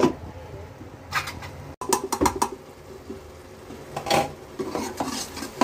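Steel ladle and utensils knocking and clinking against a metal cooking pot in a few separate short strikes, with a cluster of clatter about two seconds in and more near the end.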